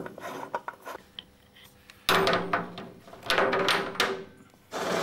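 Oil filter on a motorcycle engine being loosened with a filter socket and turned off by hand: a few sharp clicks, then three longer spells of scraping and rattling of metal on metal.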